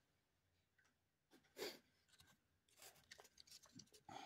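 Near silence, with a faint rustle and a few small, scattered clicks of something being handled.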